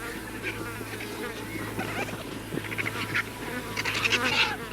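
Vultures squabbling at a carcass, giving many short, harsh, rasping calls that crowd together about four seconds in, over a steady insect-like buzz.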